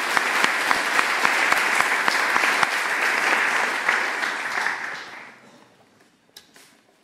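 Audience applauding, a dense patter of many hands clapping that dies away about five seconds in. A few faint clicks follow near the end.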